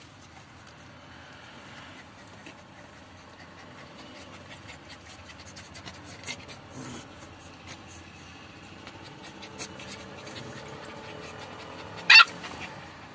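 Labrador and golden retriever puppies play-fighting: panting and scuffling with scattered light clicks. About twelve seconds in comes one short, loud, high-pitched yelp.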